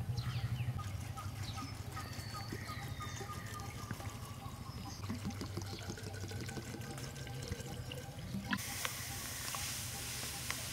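Liquid poured from a bottle into a glass jar packed with whole chilies, trickling down among them. About three-quarters of the way through, a steady hiss sets in as white granules are poured onto the chilies.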